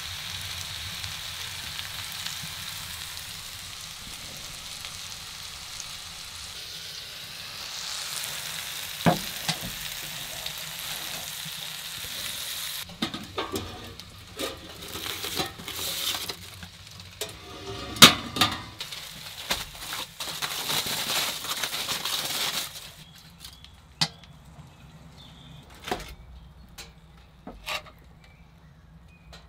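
Chicken, peppers and onion sizzling in a cast-iron skillet, with knocks and clinks of stirring against the pan partway through. The sizzling stops suddenly about three-quarters of the way in, leaving a few separate clinks of a utensil on the pan.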